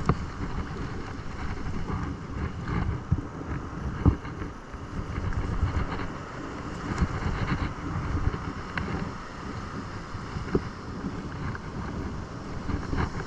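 Wind buffeting the microphone over the wash of surf on a beach, a rough low rumble that rises and falls, with a sharp knock about four seconds in.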